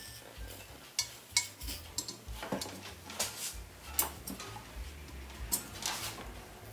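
Irregular light metallic clicks and clinks, about eight in all, from a brass lamp body and solder wire being handled during torch soldering, over a faint low hum.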